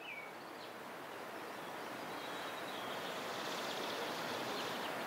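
Outdoor mountain ambience: a steady hiss that slowly grows louder, with a few short high bird chirps scattered through it.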